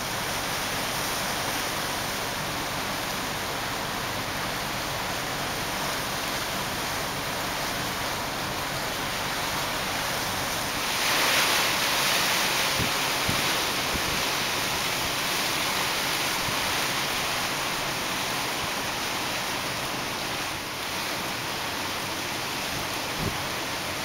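Gusty storm wind rushing through palm fronds and bare trees, buffeting the microphone, with a stronger gust about eleven seconds in.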